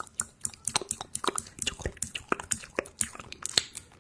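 Close-miked ASMR mouth sounds: rapid, irregular wet lip smacks and tongue clicks, made as if tasting something.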